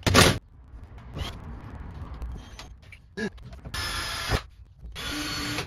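Cordless drill-driver running in two short bursts near the end, each under a second, with a steady motor tone. A loud knock comes just at the start.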